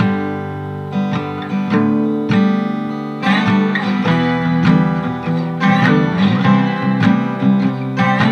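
Acoustic guitar music with plucked notes, turning busier and strummed from about three seconds in.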